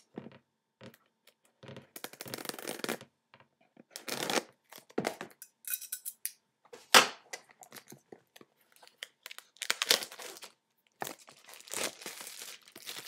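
Plastic wrapping being torn and crinkled off a small product box, in irregular bursts of tearing and rustling with one sharp, loud crackle about seven seconds in.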